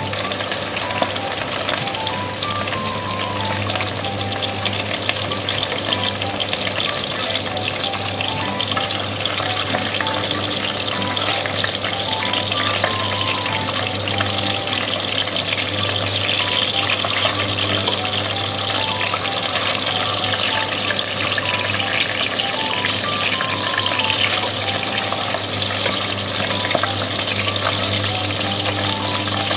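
Chicken frying in oil in a pan, with a steady, dense sizzling crackle throughout. A quiet background music melody repeats underneath.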